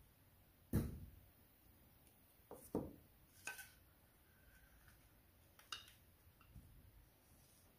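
Small metal tart pans knocking and clinking as they are handled and set down, a few separate knocks with the loudest about a second in.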